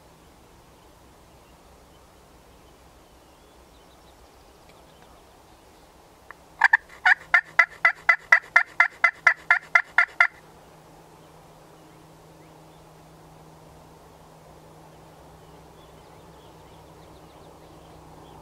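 Wild turkey yelping: a loud, even run of about sixteen yelps at about four a second, starting about six and a half seconds in and lasting about four seconds.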